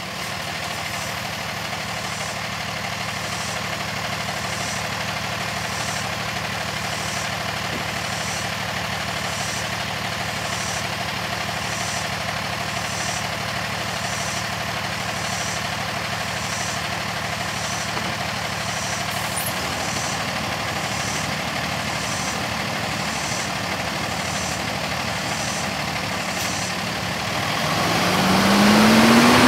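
Freightliner M2 recycling truck's diesel engine idling steadily, with a faint high ticking a little faster than once a second. Near the end the engine revs up with a rising pitch as the truck pulls away.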